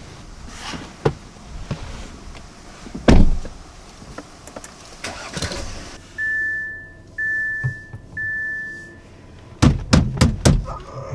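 A few dull thumps, then three steady electronic beeps of the same pitch about a second apart, then a quick run of sharp knocks near the end.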